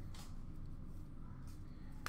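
Quiet room tone: a low steady hum with a faint hiss, and no distinct handling sounds.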